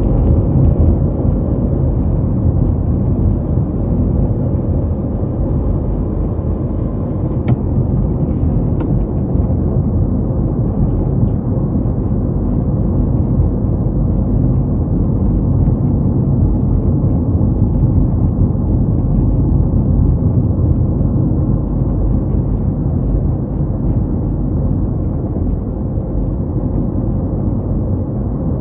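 Car driving steadily along a road: a constant low rumble of tyre, road and engine noise.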